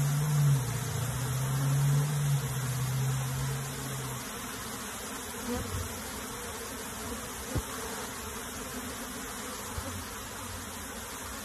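A large mass of honey bees buzzing on a hive box as they are moved into it, louder with a strong low buzz for the first four seconds, then settling into a steady hum. A single brief click about seven and a half seconds in.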